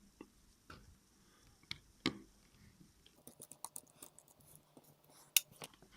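Faint, scattered small clicks and ticks of a precision screwdriver and tiny screws against a phone's internal parts as motherboard screws are taken out. A sharper click comes about five seconds in.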